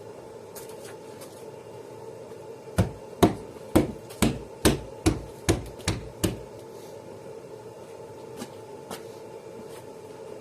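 A run of about ten sharp taps, roughly three a second, lasting a few seconds, made on a car windscreen to bed the glass into its sealant.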